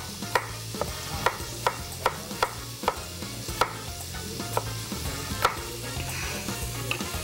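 Chef's knife slicing cucumber on a wooden cutting board, knocking the board in a steady rhythm of about two and a half cuts a second, then slower and more irregular after about three and a half seconds. Under it, a steady hiss of chicken frying in oil.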